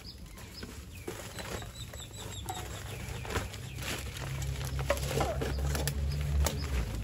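A woven plastic sack rustling and plastic litter crackling as trash is handled and picked through, with birds calling in the background.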